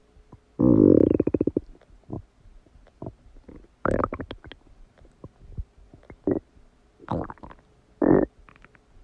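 Human stomach gurgling as it digests a cheeseburger. A long, loud gurgle made of quick pulses comes about half a second in, then several shorter gurgles follow every second or so.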